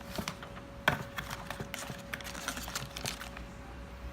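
Small plastic sample bottles and packaging being handled, with light clicks and rustling and a sharper knock about a second in.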